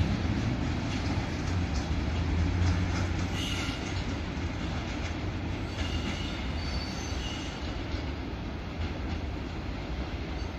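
Freight train of hopper wagons rolling away: a low rumble that slowly fades, with short high wheel squeals about a third of the way in and again past the middle.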